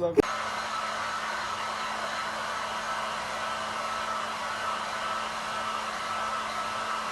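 Steady, unchanging whir of a small motor with rushing air and a faint constant hum, like a hair dryer or fan running.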